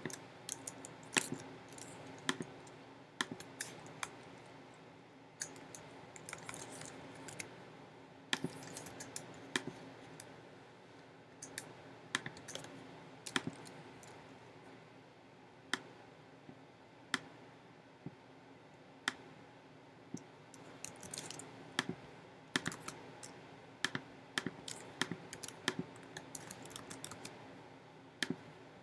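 Scattered sharp clicks and light taps, some single and some in quick clusters, with a few short rustles, over a faint steady hum.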